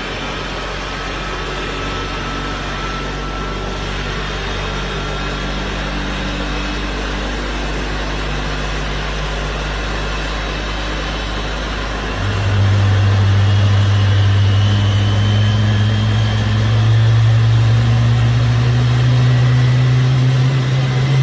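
A steady engine drone that steps up and grows louder about twelve seconds in.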